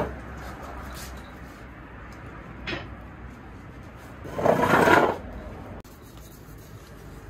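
Handling noise at a wooden-framed wire-mesh cooling rack: a sharp knock at the start, a lighter click near three seconds, and a louder scraping rustle lasting about a second just after four seconds, over a low steady hum.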